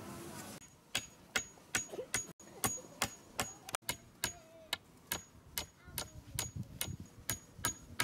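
Claw hammer driving a nail into a wooden pole of a beehive frame: steady light blows about two a second, starting about half a second in, each with a short metallic ring.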